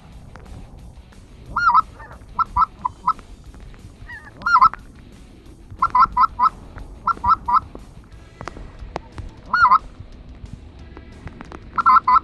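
Geese honking: short two-part honks, singly and in quick runs of three or four, coming every second or two.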